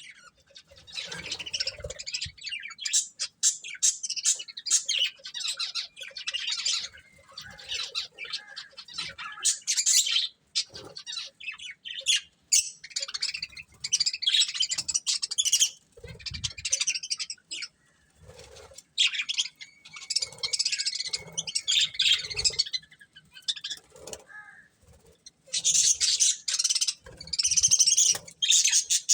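A pair of budgerigars chirping and chattering in busy runs of a few seconds, with short pauses between them.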